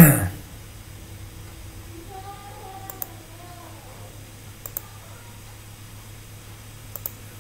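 Computer mouse clicks: quick double clicks about three, five and seven seconds in, over a low steady hum, with a loud thump right at the start.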